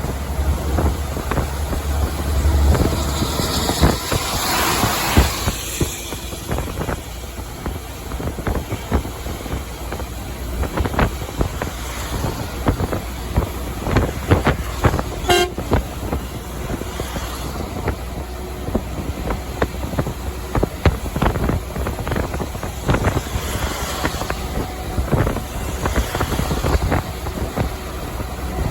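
Semi-truck on the highway heard from the cab: a steady low engine and road rumble with frequent rattles and knocks, and toots of the truck's horn.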